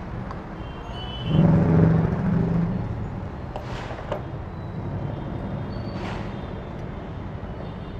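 A motor vehicle's engine running loudly for about a second and a half, over a steady low rumble of traffic, with two short faint noises later on.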